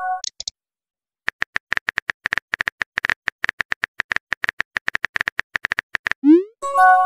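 Phone messaging-app sound effects. A notification chime ends with two short high blips, then quick on-screen keyboard tap clicks run for about five seconds. Near the end a short rising swoosh and a chime mark the message being sent.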